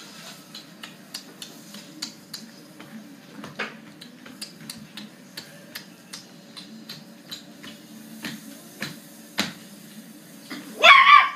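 Light clinks and taps of dishes and utensils being handled, two or three a second, a few of them louder. Just before the end comes a short, loud, high cry.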